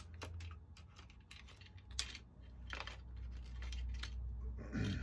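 Scattered light clicks and short scrapes of a small screwdriver and plastic and metal parts as a G-scale model locomotive's chassis is unscrewed and taken apart. A steady low hum runs underneath.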